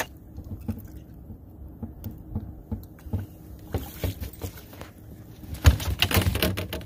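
A large sturgeon being lifted out of the river into an aluminum boat: water splashes and sheds off the fish about four seconds in. Near the end comes a cluster of loud knocks and thumps as the fish thrashes and bumps against the boat.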